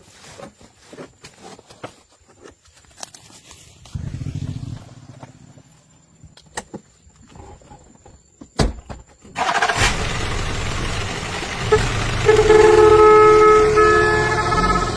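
Scattered clicks and knocks, then a vehicle engine starts up about nine seconds in and keeps running loudly. A horn sounds over it in broken blasts near the end.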